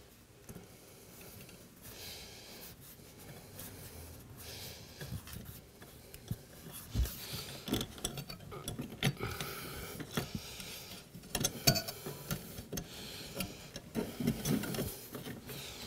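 Hands working at a dishwasher's electrical junction box: a wire nut twisted onto the power wires and the wires pushed into the metal box, giving faint rubbing and scattered light clicks that come more often in the second half.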